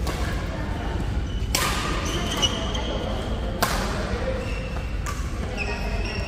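Badminton rally: a racket strikes a shuttlecock with two sharp cracks about two seconds apart and fainter hits around them, over the chatter of a busy sports hall. Brief shoe squeaks on the court floor come in between the hits.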